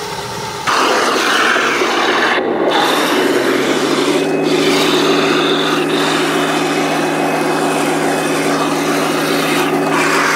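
Radio-controlled model tank driving over loose dirt: its electric drive motors and gearboxes whine steadily under a grinding, rasping noise from the running gear and tracks. The sound gets abruptly louder less than a second in and fades out near the end.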